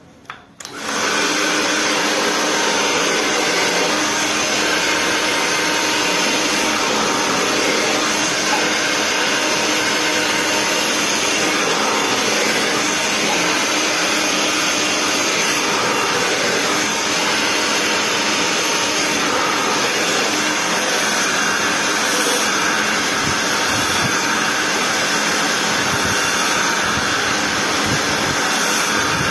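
Handheld hair dryer blowing steadily while blow-drying damp hair, starting under a second in.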